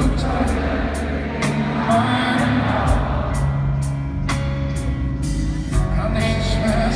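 Live band music from the floor of a large arena: a slow song carried by upright double bass notes and keyboard, with a light steady beat.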